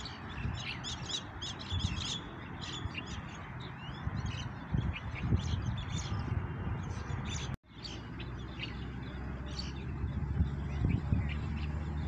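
Many small birds chirping in short, quick calls, over a steady background hiss and a low rumble. The sound cuts out for an instant about two-thirds of the way through.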